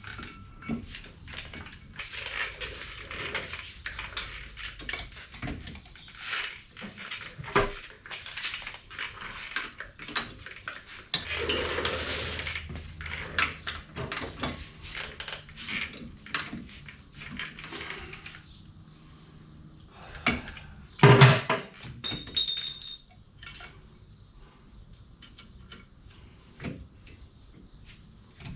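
Metal tools and parts clinking and clanking in an irregular run of knocks and scrapes, with one louder clank about 21 seconds in.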